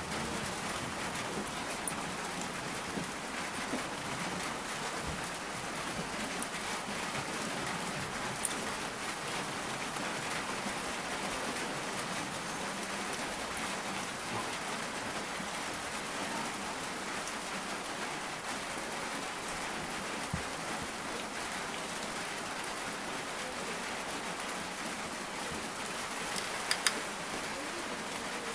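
Steady rain falling, an even hiss with a few sharp ticks of single drops, two close together near the end.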